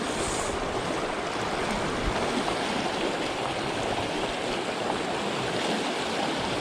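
Small mountain stream rushing and splashing over rocks, a steady even water noise.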